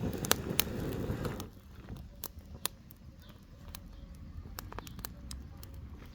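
Campfire crackling, with irregular sharp pops of burning wood. A louder rustling noise comes in the first second and a half.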